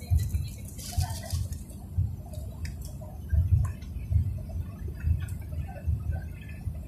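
Low rumble of a moving car heard from inside, with irregular low thumps and faint clicks.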